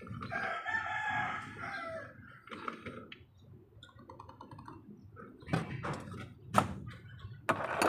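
A rooster crowing once, then several sharp knocks, the loudest near the end.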